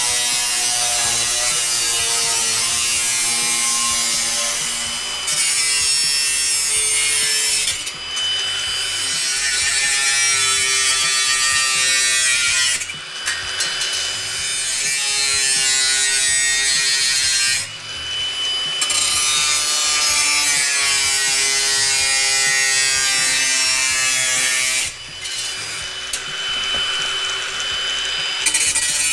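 Electric power tool cutting a sheet-steel repair panel, trimming it before its edges are folded. The motor runs in long stretches with short pauses, and its tone shifts as it cuts.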